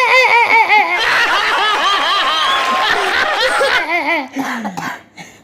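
People laughing: high-pitched laughter in rapid pulses, joined by another laughing voice about a second in, dying away about four seconds in.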